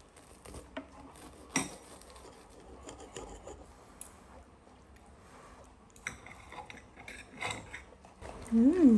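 Metal fork clicking and scraping on a ceramic plate while puff pastry is eaten, with soft chewing between. Near the end comes a short hummed "mmm" that rises and then falls in pitch, the loudest sound.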